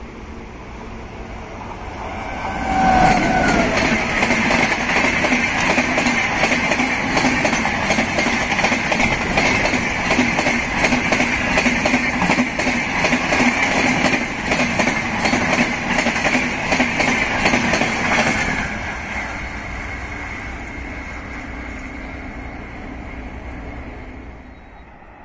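A passenger train hauled by an Indian Railways WAP-7 electric locomotive passes close by at speed. The noise swells suddenly about two seconds in and holds as a steady rumble with a hum and rapid wheel clicks over the rail joints. It fades away after about eighteen seconds as the last coaches go by.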